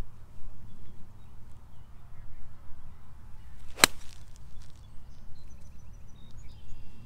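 Golf club striking a golf ball on a full swing: one sharp crack about four seconds in, over a steady low rumble.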